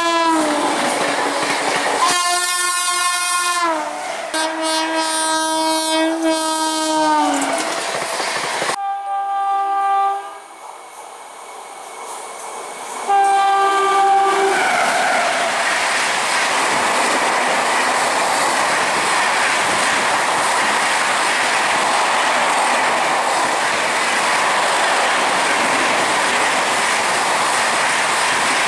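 Indian express train's locomotive horn sounding several long blasts, each dropping in pitch at its end as the train passes. After them comes the loud, steady noise of the train rushing by at high speed, its wheels clattering over the rail joints.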